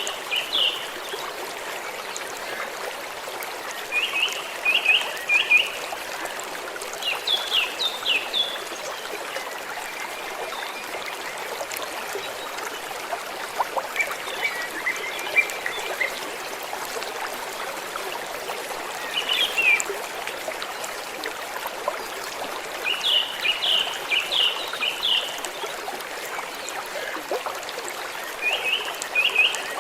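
Gently flowing stream making a steady rush of water, with a bird calling over it in short bursts of several quick high chirps every few seconds.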